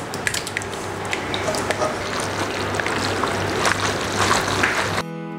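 Spaghetti being tossed with thick bolognese sauce in a plastic bowl: wet squelching with many light clicks and scrapes of a wooden spatula against the bowl. Near the end it cuts off and acoustic guitar music starts.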